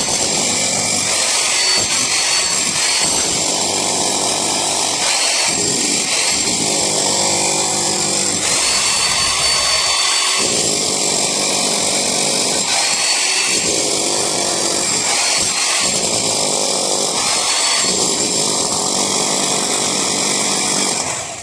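Handheld power tool running loud and steady, a heavier, lower note coming in several times as it is pressed into the work; it cuts off suddenly at the end.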